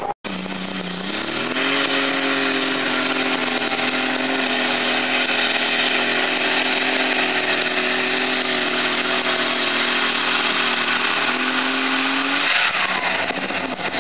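A competition pulling tractor's engine at full throttle hauling the weight sled. Its pitch climbs about a second in and holds high and steady through the pull, then drops away near the end as the throttle comes off.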